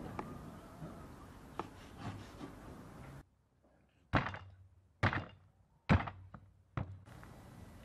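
A heavy meat cleaver chopping through ox ribs on a thick wooden chopping board. Four sharp, heavy chops come about one a second in the second half.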